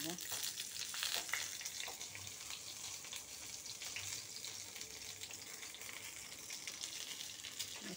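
Masala-stuffed whole brinjals frying in hot oil in a pan: a steady sizzling hiss with scattered small crackles.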